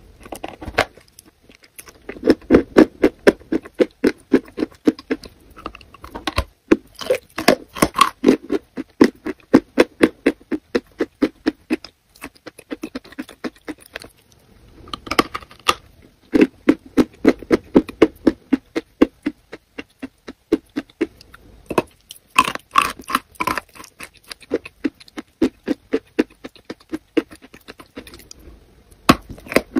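Close-miked biting and wet, sticky chewing of a soft food thickly coated in yellow sauce: fast runs of mouth clicks and smacks, with a few short pauses.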